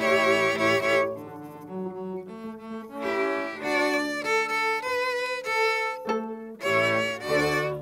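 A small string ensemble of three violins, cello and double bass playing a lively fiddle-style tune. The texture thins about a second in, fills out again, and finishes on a full chord near the end.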